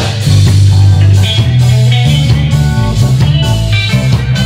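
Live reggae band playing: a heavy bass line leads under electric guitar, keyboard and drum kit, the bass stepping between short and held notes.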